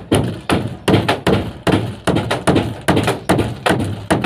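Steady hammering: even, dull blows about two and a half times a second, each dying away quickly.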